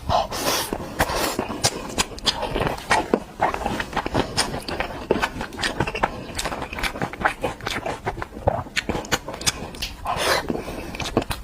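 Close-miked eating sounds: chewing and mouth noises with many sharp clicks and crackles, and two longer breathy rushes, one near the start and one near the end.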